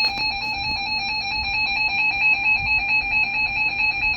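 Emergency Alert System attention signal: a steady, shrill two-note electronic tone with a slight pulsing flutter, the signal that announces an incoming emergency broadcast warning.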